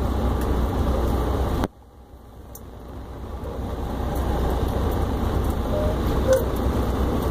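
Steady low rumble of the truck's running engine and road noise heard inside the cab, with a light hiss above it. It cuts out suddenly a little under two seconds in and fades back up over the next few seconds.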